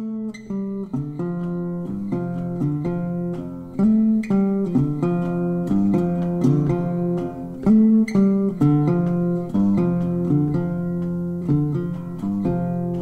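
Background music led by plucked acoustic guitar, a steady run of picked notes.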